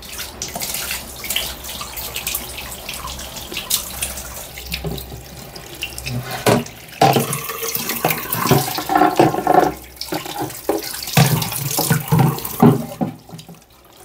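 Tap water running into a sink over a plastic washing-machine part while it is scrubbed with a steel-wool pad, with scraping and frequent knocks of the plastic.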